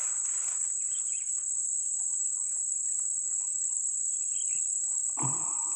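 Steady high-pitched chorus of insects, with faint short bird chirps scattered through it and a brief thump about five seconds in.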